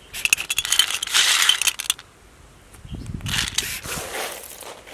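Dried castor seeds falling from a hand into a stainless steel bowl: a rapid run of small clinks and rattles for about two seconds. A little later a hand rustles through the dry, split seed husks on a plastic sack.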